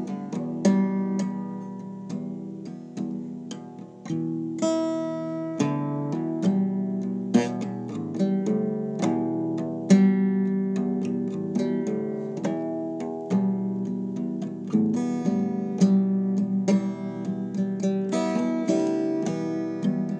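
Solo acoustic guitar playing, notes and chords plucked in a steady run, each ringing out and fading.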